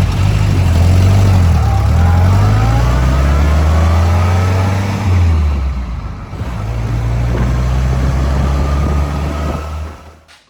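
A vehicle engine running loudly and accelerating, its pitch shifting several times as it revs, then fading out near the end.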